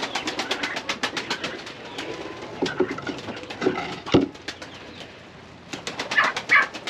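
Pigeons cooing in a coop, with fast runs of sharp taps near the start and again near the end, and one short sharp call about four seconds in.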